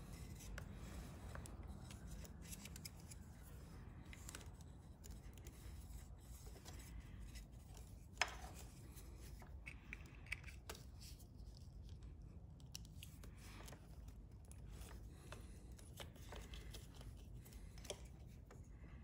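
Faint clicks and rubbing of plastic throttle position sensor wiring connectors being handled and pressed together, with one sharp click about eight seconds in, over a low steady rumble.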